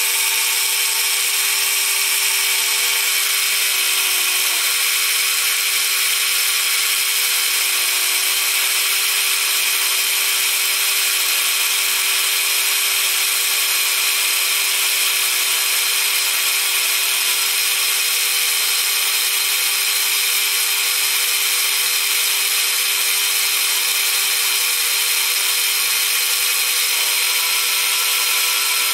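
Drill press running steadily, its bit cutting through 2 mm aluminium sheet with an unchanging whine.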